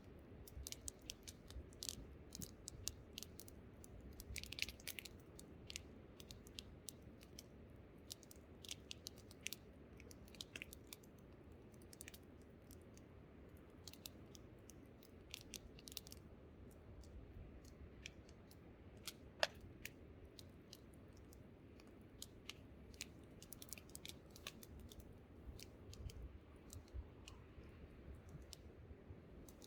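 Wood campfire crackling and popping, with irregular sharp snaps several times a second and one louder pop about two-thirds of the way through, over a steady low rumble of wind.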